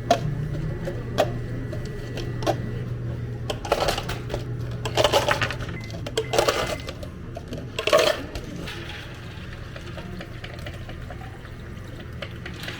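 Espresso machine pump humming steadily, with clinks of cups and tools and a few short pours or splashes of liquid. The hum fades about halfway through.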